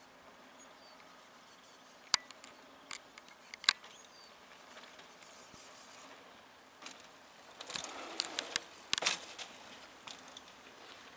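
Mountain bike coming down a dirt trail, its tyres scraping on the dirt and the bike rattling as it passes close, about eight to nine seconds in. Two sharp clicks earlier, around two and three and a half seconds in.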